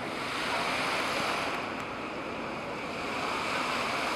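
Dozens of small fountain jets spraying up and splashing back into a shallow pool: a steady rush of falling water.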